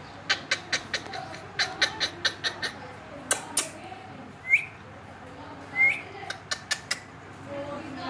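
Indian ringneck parakeet giving two short, sharp chirps, about four and a half and six seconds in, among runs of quick, sharp clicks.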